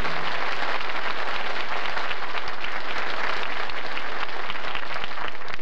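Applause: many hands clapping together, a dense steady patter. The last held chord of the song stops just as it begins.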